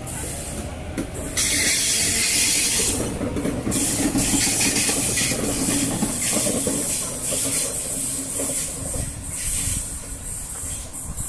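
A Sydney Trains double-deck electric train pulls out and passes close by. Its motors whine, rising in pitch, then a loud hiss comes in about a second in, over the steady rumble of the wheels on the rails, which eases off near the end.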